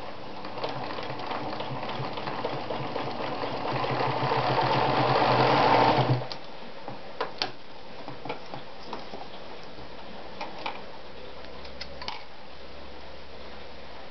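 Anker RZ sewing machine stitching through folded denim, running faster and louder for about five seconds, then stopping abruptly. A few light clicks and taps follow as the work is handled.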